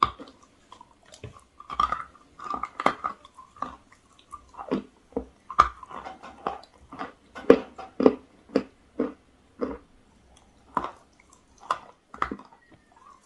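Close-miked biting and chewing of a chalk-and-clay block: a rapid, irregular run of crisp crunches as pieces are bitten off and ground between the teeth.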